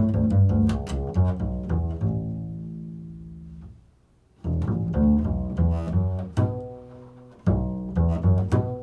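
Improvised music on a low-pitched stringed instrument: clusters of plucked notes that ring on and fade, breaking off about four seconds in and starting again half a second later, with another short break near the end.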